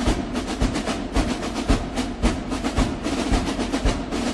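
Background music: a marching drum cadence, with snare rolls over a steady bass drum beat about twice a second.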